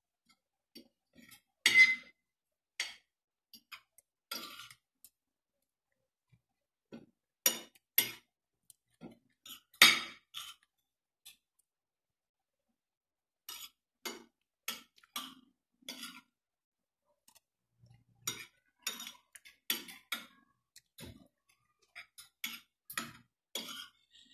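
Metal spoon and fork clinking and scraping against a plate as food is scooped up and eaten, in irregular taps with a pause of about two seconds midway.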